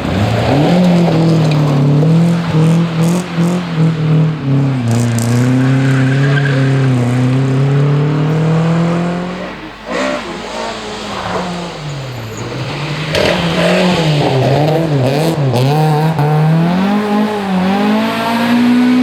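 Rally car engine at full throttle, its pitch climbing and dropping repeatedly through gear changes. It fades briefly about ten seconds in, then revs hard again.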